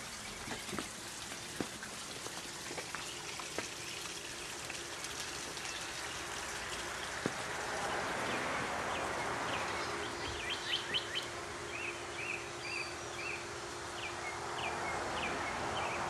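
Outdoor ambience: a steady hiss with a few sharp clicks early on, then from about ten seconds in a bird's short high chirps repeating a couple of times a second over a faint steady hum.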